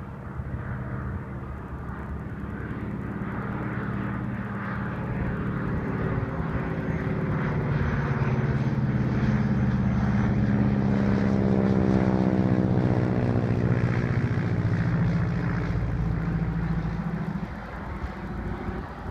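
North American SNJ-5C's nine-cylinder Pratt & Whitney R-1340 Wasp radial engine and propeller on landing approach, passing low overhead. It grows louder toward the middle, drops in pitch as it goes by, then fades.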